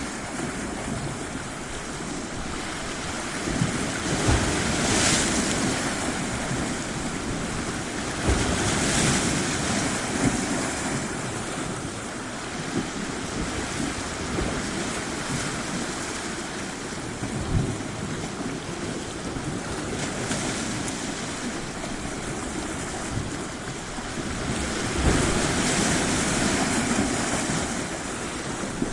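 Ocean waves washing onto a shore, a steady rush that swells with a louder surge every several seconds, with low rumbles of wind on the microphone.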